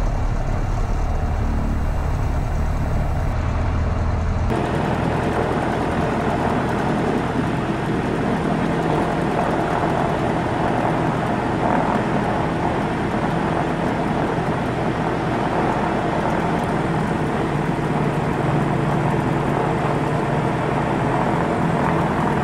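Diamond DA40's Lycoming IO-360 piston engine idling, a low steady drone in the cabin. About four and a half seconds in it gives way to a phone-recorded steady rushing engine noise, with an Airbus A320 jet taxiing up behind the holding aircraft.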